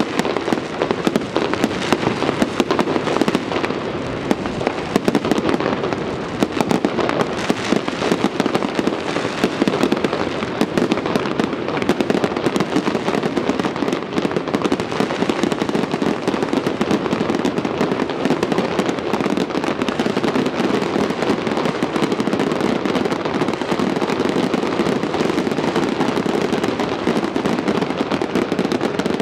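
Fireworks going off without pause: a dense, continuous run of pops, bangs and crackles.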